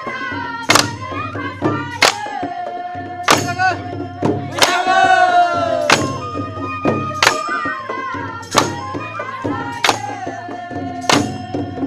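Live Bodo folk dance music. A bamboo flute plays a held, wavering melody over sharp beats a little over a second apart.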